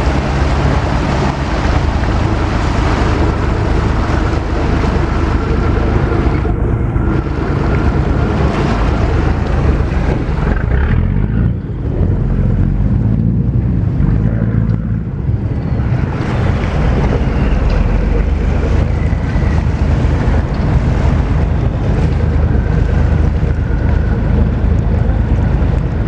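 Speedboat under way: a steady engine drone mixed with rushing water, and wind buffeting the microphone.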